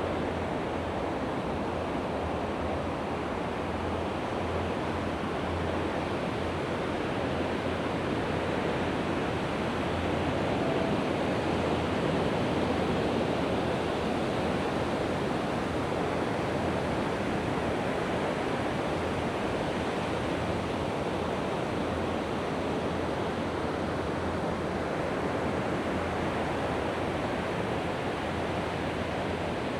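Mediterranean sea waves washing onto the beach: a steady surf wash that swells a little about halfway through.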